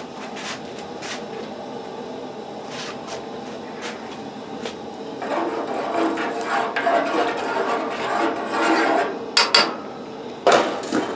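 A spoon stirring rice in a saucepan of hot water, scraping round the pot for a few seconds from about five seconds in. Near the end come a few sharp clinks as a glass lid is set on the pot.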